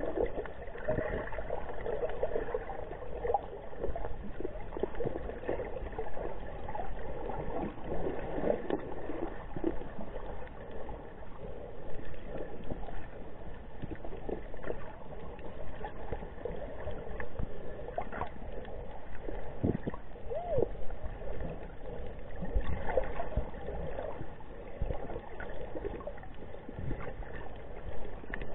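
Muffled underwater water noise heard through an action camera's waterproof case, with scattered small knocks and short bubbly gurgles.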